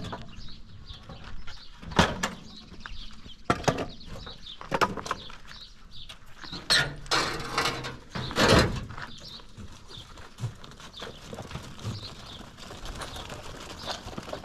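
Knocks and scraping as a makeshift panel door of a goat pen is shifted and dragged aside. There is a handful of sharp clatters, with the longest, noisiest scrape about seven to nine seconds in.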